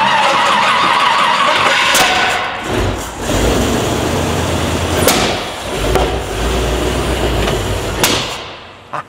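Swapped-in Chevy engine in a Toyota 4x4 cranked on the starter and firing up, running unevenly for several seconds before it dies away near the end. The engine would not run before, and the mechanics suspect its ignition timing is off or its camshaft is flat.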